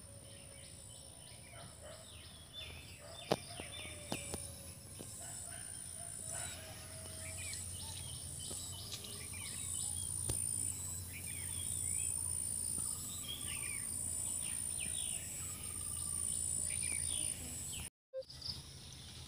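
Birds chirping and twittering in short calls one after another, with a few sharp clicks; the sound cuts out briefly near the end.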